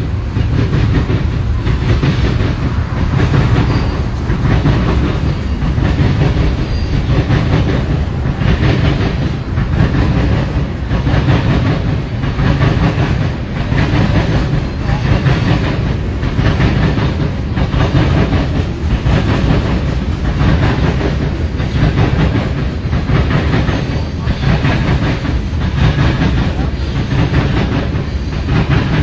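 Freight train of tank cars rolling past: a steady, loud rumble of steel wheels on rail, with a rhythmic clickety-clack of the wheels repeating roughly once a second.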